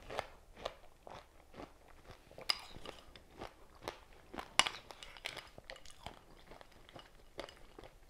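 A person chewing a mouthful of fresh berries in coconut water, with irregular wet crunches and mouth clicks, the loudest about two and a half and four and a half seconds in.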